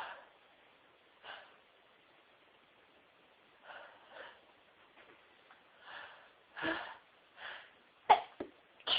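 A woman's short sniffing, catching breaths, one every second or so and growing louder as a sneeze builds, then a sudden sharp stifled sneeze near the end with a smaller one right after.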